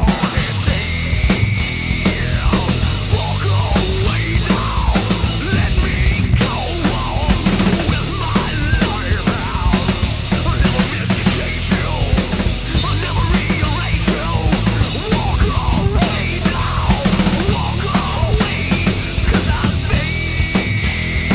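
Heavy metal song played by a full band: seven-string electric guitar, five-string bass guitar and drum kit.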